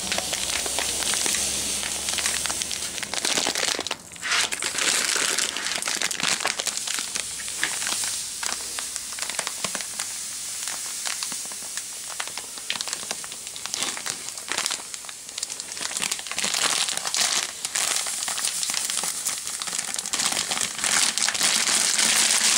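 Granulated sugar pouring from a plastic bag into a glass jar, a continuous rustling hiss with the bag crinkling and crackling throughout. The sound dips briefly about four seconds in.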